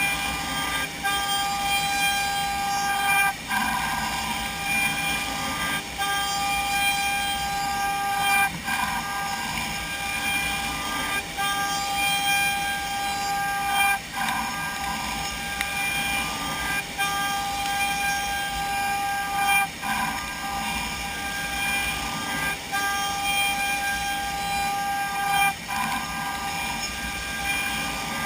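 CNC machining centre's router spindle whining at a steady pitch while 3D-milling wood, with brief dips in the sound about every three seconds.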